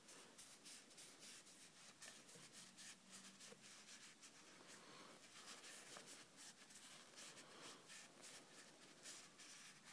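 Faint, irregular scratchy rubbing of a microfiber cloth wiping the blade of a Strider SMF folding knife, cleaning off duct-tape residue.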